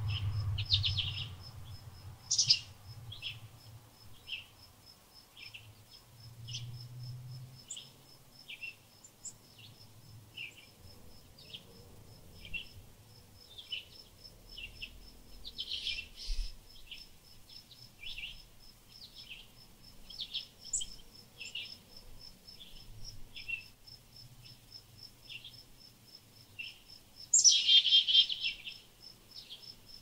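Small songbirds chirping, short notes repeated about every half second, with louder bursts of chirping twice mid-way and once near the end, the loudest. A steady high pulsing of an insect, like a cricket, runs underneath.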